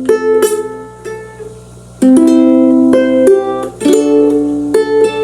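Ukulele strumming chords: single strums let ring, with a hard strum about two seconds in held for over a second, then quicker down-up strums in the second half.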